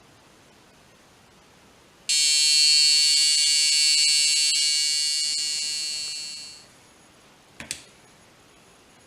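Electronic buzzer of a homemade Arduino airsoft time bomb sounding one long, loud, shrill alarm tone of about four and a half seconds, starting about two seconds in and fading away at the end, followed by a single short click.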